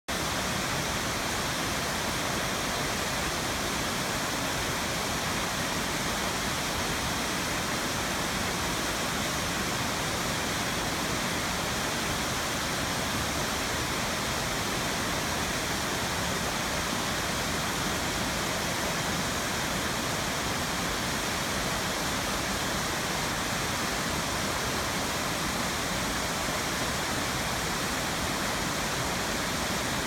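Waterfall pouring down a rock face into a plunge pool: a steady, unbroken rush of falling water.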